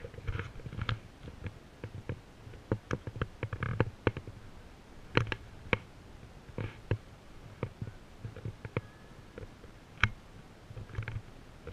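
Irregular sharp clicks and soft low thumps, unevenly spaced, from a hand-held camera being carried at a walk: handling noise and footfalls.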